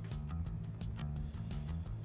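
Background music with a steady beat of about four strokes a second over a sustained bass line.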